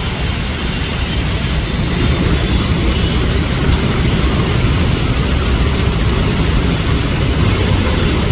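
Heavy monsoon rain falling as a loud, steady rush of noise with a rumbling low end.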